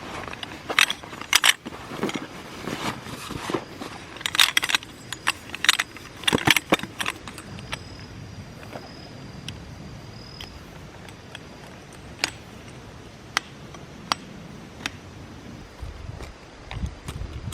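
Light clinks, knocks and rattles of small hard objects being handled, thick in the first several seconds and then spaced out into occasional single clicks.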